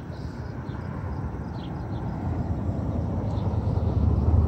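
A car approaching along a road, its engine and tyre noise swelling steadily louder with a growing low rumble. Faint, short high chirps, likely a small bird, repeat over it.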